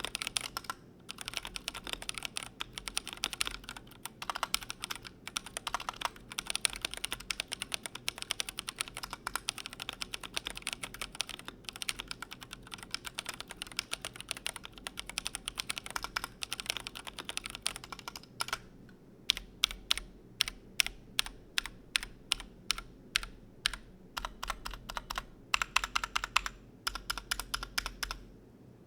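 Typing on a Glorious GMMK Pro mechanical keyboard: a fast, continuous run of key clacks, changing past the halfway point to slower, separate and louder single key presses, with a quicker flurry near the end.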